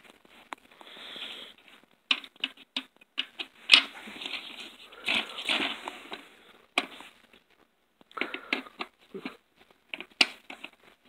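A Phillips screwdriver and hands working on the plastic housing of a Health O Meter electronic bathroom scale: irregular clicks, taps and scraping, in stretches broken by short pauses.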